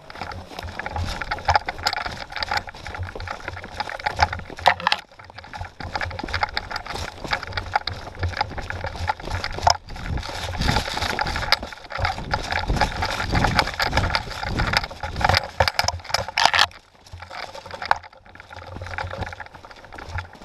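Footsteps crunching through dry leaf litter and brushing through undergrowth, with rustling and knocks of handling noise from a camera mounted on the carried gun. The noise is irregular and pauses briefly a few times.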